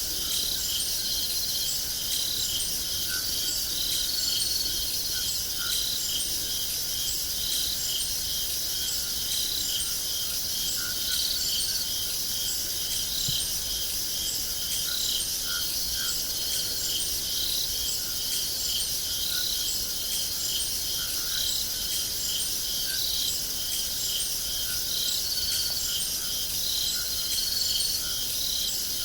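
A chorus of crickets: one cricket chirps steadily about twice a second over a continuous high-pitched hiss of many more insects.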